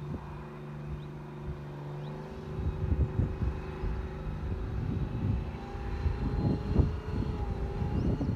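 Supercharged 240-horsepower off-road vehicle's engine pulling hard up a steep hill. It grows louder and rougher as it climbs closer, and a steady whine comes in about six seconds in.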